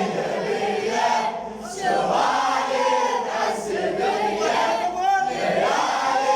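A crowd of mourners chanting a Shia latmiyya refrain together in unison, many voices at once, with a brief dip about one and a half seconds in.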